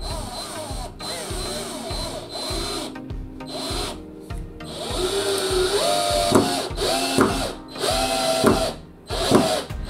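Black+Decker BCD003C2K 18V cordless drill driving a long screw into a block of timber. Its motor whines in several short runs that start and stop in the second half as the trigger is pressed and released.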